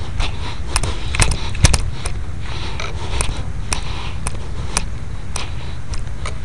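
Wind rumbling steadily on a phone camera's microphone, with irregular sharp clicks and knocks from the phone being handled as it pans. The loudest click comes about a second and a half in.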